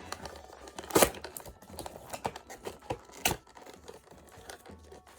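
Toy packaging being torn open and crinkled by hand, with irregular sharp crackles; the loudest comes about a second in and another a little after three seconds.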